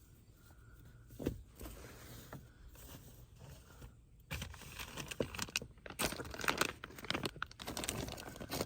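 Irregular crinkling and rustling of items being handled and moved about, faint at first and busier and louder from about halfway through.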